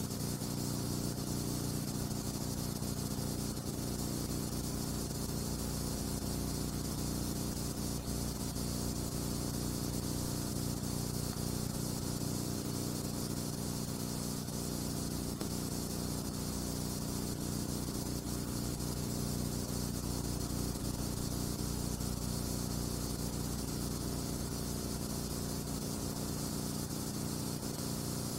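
Steady hiss with a low electrical hum underneath and no other sound. It is the noise floor of a silent film's transfer, which has no soundtrack.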